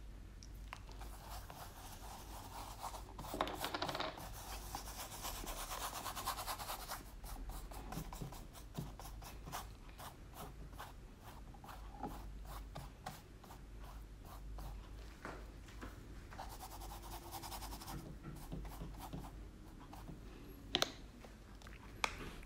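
Flat paintbrush scrubbing acrylic paint across a canvas: faint, scratchy rubbing of the bristles in repeated strokes, with a quick run of short strokes through the middle. Two sharp knocks come near the end.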